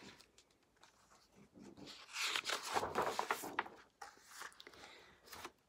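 Pages of a picture book being turned, paper rustling and sliding, for about two seconds from a second and a half in, with a softer rustle near the end.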